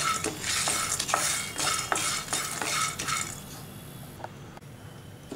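Wooden spatula stirring pumpkin seeds as they roast in a pan, the seeds rattling and scraping across the pan's surface in regular strokes about three a second. The stirring stops about three seconds in, leaving a quieter stretch with a few faint ticks.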